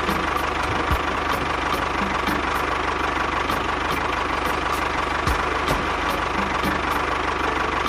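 Tractor engine idling steadily with a fast, even knock.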